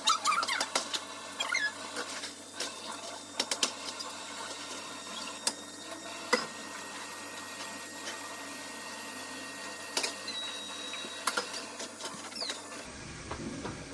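Kitchen clatter: irregular clicks, clinks and knocks of dishes and utensils being handled, with a few brief high squeaks near the start.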